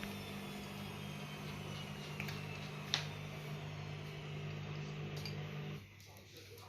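Washing machine running with a steady hum and a faint whine that slowly falls in pitch, two sharp clinks about two and three seconds in, then the machine's sound cuts off suddenly about a second before the end.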